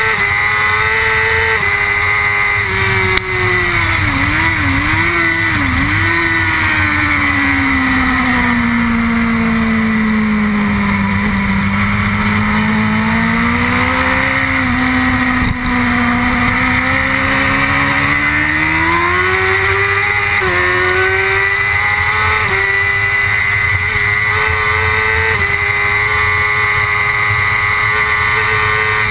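BMW S1000RR inline-four engine at racing speed, heard from onboard with a rushing wind noise. A few seconds in the revs drop through quick downshift blips, sink low through the middle, then climb again with several quick upshifts in the last third.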